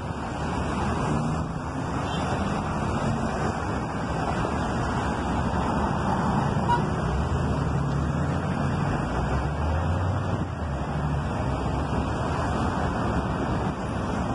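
Road traffic noise: a steady rush with a low engine hum that drifts up and down in pitch.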